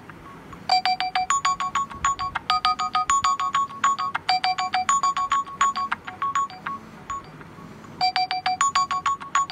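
Smartphone alarm ringing: a bright, plinking melody of quick short notes that loops, with a short gap about two-thirds of the way through before the tune starts over.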